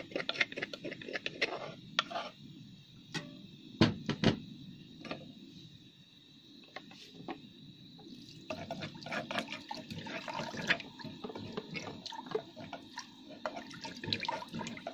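A few knocks and clinks, then from about eight and a half seconds in, water poured steadily from a jug into a pot of curry broth, splashing into the liquid.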